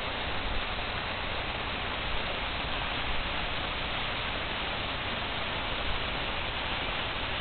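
Waterfall at an ice cave, water rushing in a steady, unbroken stream.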